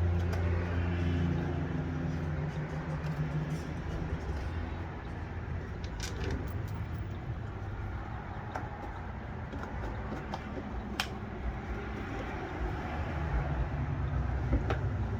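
Low steady rumble with a pitched hum that fades over the first few seconds, and a few sharp clicks and knocks scattered through, about six and eleven seconds in and near the end.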